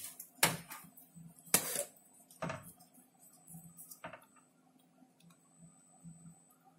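A few sharp clicks and knocks from hands handling the parts of an opened LCD monitor: four in the first few seconds, then only faint rustling.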